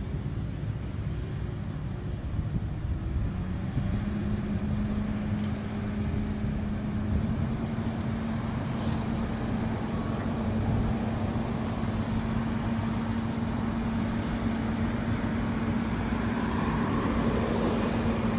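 Kobelco SK210 hydraulic excavator working, with a steady diesel engine rumble. A steady hum joins it a few seconds in and holds, and there is a single brief click near the middle.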